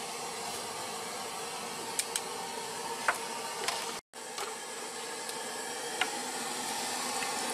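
Steady hiss of a street noodle cart's boiling-water pot and burner, with a few light clicks of bowls and utensils. The sound cuts out for a moment about four seconds in.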